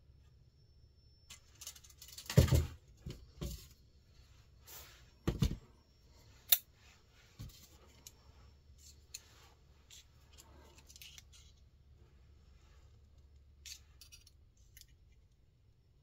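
Handling noise of a pocket knife and a steel digital caliper. A few knocks come in the first six seconds, the loudest about two and a half seconds in, and a sharp click follows at about six and a half seconds. After that come fainter small metal clicks as the caliper jaws are set against the knife blade.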